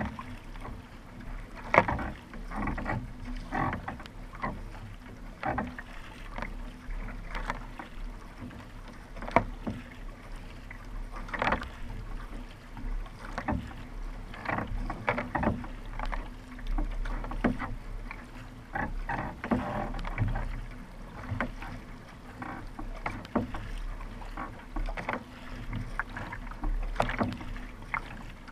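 Kayak paddle strokes: the blade catching and splashing in the water roughly once a second, irregular in strength, over a steady low rumble of water and wind.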